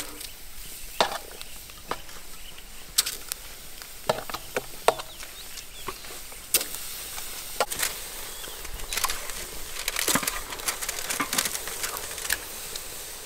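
Metal tongs clicking and tapping against a wire grill rack as chicken drumsticks are laid on it one at a time over a charcoal fire, with a steady hiss of meat beginning to sizzle on the hot grate.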